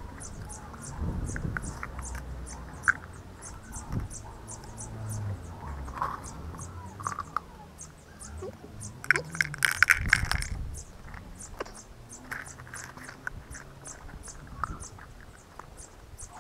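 An insect chirping steadily, short high ticks at about four a second, over the soft knocking of plastic tubs being moved on grass. About nine seconds in comes a louder clatter and rustle as a towel is drawn over the tubs.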